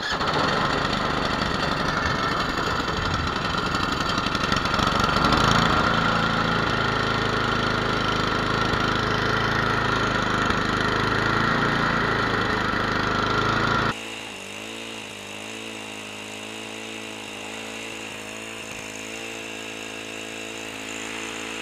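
Tecumseh HMSK80 single-cylinder four-stroke engine of a Toro Power Max 826 LE snowblower running on a newly fitted fixed-jet replacement carburetor, loud and steady at first. About 14 seconds in the sound drops sharply to a quieter running note whose pitch wavers slightly.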